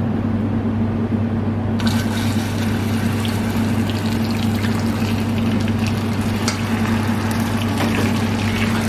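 Milk added to hot butter-and-sugar caramel in a stainless steel saucepan: about two seconds in, a sudden steady hissing and sizzling starts and carries on as the caramel foams up and boils hard. A steady low hum runs underneath.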